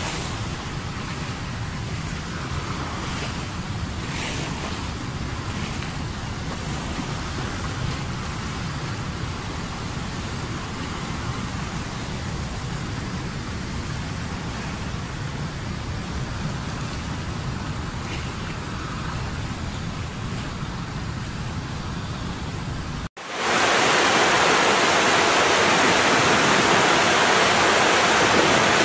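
Steady rush of surf and wind, heaviest in the low end with a few faint brighter swells. About 23 seconds in, it cuts abruptly to a louder, hissing, even roar of falling water.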